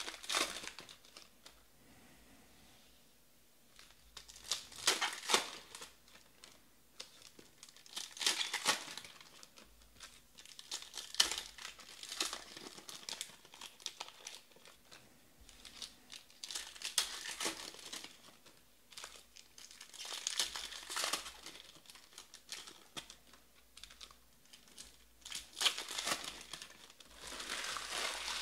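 Foil wrappers of 2019 Panini Elite Extra Edition baseball card packs being torn open and crinkled by hand. The crinkling comes in short bursts every few seconds.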